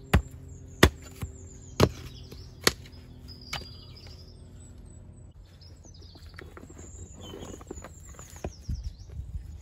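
Pick mattock striking into soil and tree root, about six sharp blows in the first three and a half seconds as the root under the wall is chopped out. After that, quieter scraping and rustling of loose soil and stones being cleared by hand, with birds chirping.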